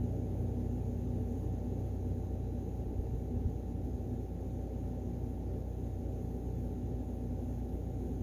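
Steady low hum with a faint constant tone running through it, like an air conditioner or fan running in the room, and a single faint tick about three and a half seconds in.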